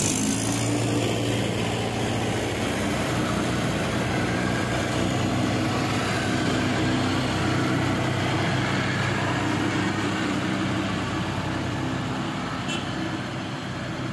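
Diesel tractor engines running steadily with a low drone while one tractor tows another, with its loaded trailer, out of mud on a rope.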